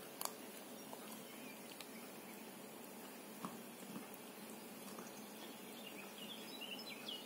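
Faint room noise with a few soft, scattered clicks from a pit bull puppy chewing a small bone treat; short high chirps come in near the end.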